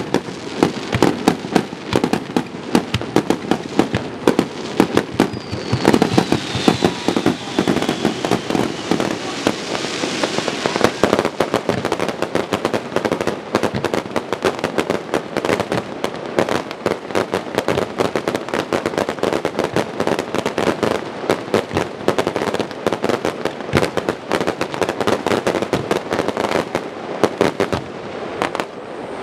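Fireworks display: a rapid, continuous barrage of bangs and crackles from bursting shells, with a whistle falling in pitch about six seconds in.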